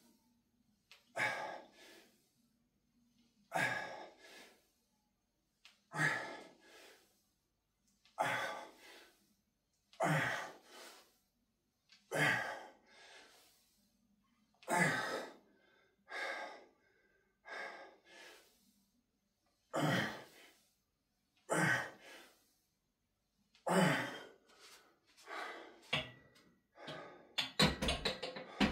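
A man breathing hard through a set of barbell back squats, with a forceful breath about every two seconds, one per rep. Near the end the sounds come quicker and denser.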